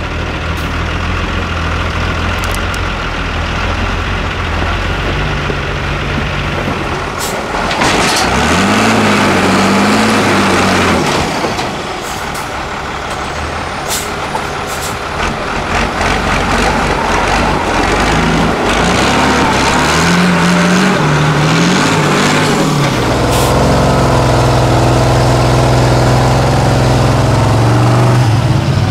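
Heavily modified off-road trial trucks' engines working hard on steep dirt climbs, revving up and down in pitch and then pulling steadily under heavy load near the end. A few short, sharp hissing bursts cut through the engine noise.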